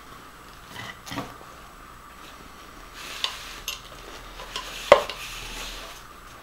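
The cap and fittings of a liquid nitrogen dewar handled with cryogenic gloves: a few sharp clicks and knocks of plastic and metal, the loudest near the end, with a soft hiss in the second half.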